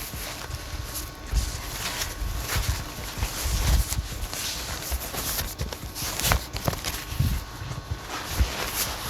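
Box and packaging being handled and opened: irregular knocks, taps and low thuds, with rustling of packing material between them.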